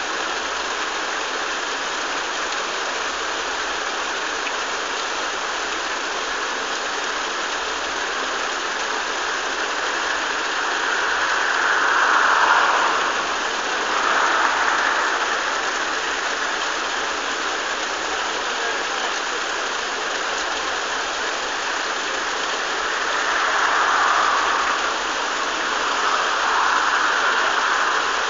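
Steady rush of water flowing through a canal lock's gates and paddles, swelling louder a couple of times.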